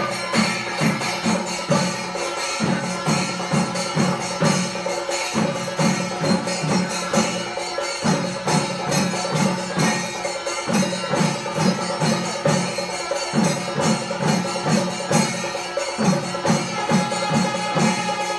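Chenda drums of a Kerala percussion ensemble (chenda melam) beaten with sticks in a fast, steady rhythm of about four strokes a second, breaking off briefly every few seconds.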